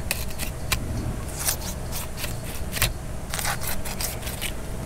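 Dual-edge Dexter fillet knife cutting over a mangrove snapper's rib cage and along its backbone, an irregular series of short, crunchy scrapes of blade on bone, roughly two a second.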